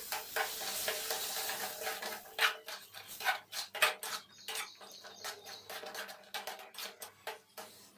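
Metal spoon stirring and scraping a thick semolina (rava) barfi mixture in a metal kadai, with many short irregular scrapes and knocks against the pan as milk is worked into the roasted semolina. A soft hiss runs under the first couple of seconds.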